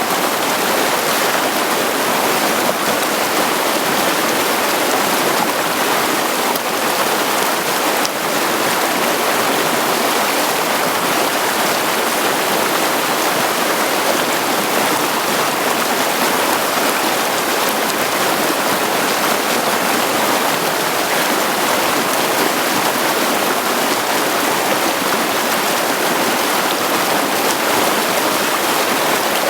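Mountain creek water running over and between stones, a steady, loud rush of flowing water.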